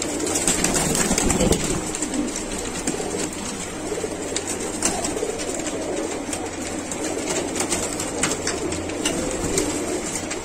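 A room full of domestic pigeons cooing continuously in an overlapping chorus, with scattered short flaps and scuffles as a bird is caught and handled.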